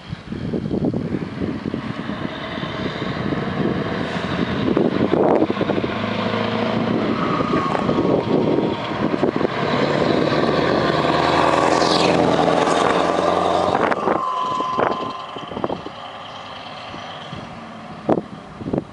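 Scania truck with a box trailer approaching and driving past, its diesel engine and tyres growing louder, loudest about two-thirds of the way through, then fading as it pulls away.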